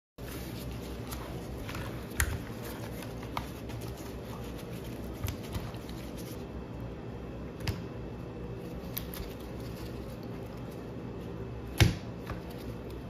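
Gloved hand mixing whole fish in a wet marinade in a stainless steel bowl: soft handling noise with scattered clicks and knocks, one sharper knock near the end, over a steady low background hum.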